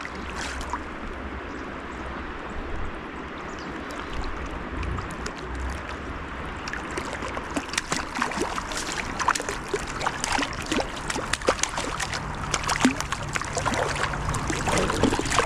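River water running steadily, with small splashes and trickles that grow busier and louder through the second half, over a low rumble.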